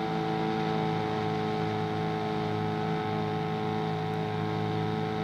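Motorboat engine running steadily at one even pitch.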